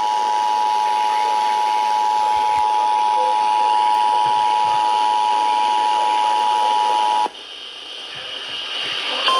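Emergency Alert System two-tone attention signal, a loud steady dual tone over radio hiss, announcing a warning message. It cuts off about seven seconds in, leaving hiss. Near the end a single steady, slightly higher tone begins: the NOAA Weather Radio warning alarm tone.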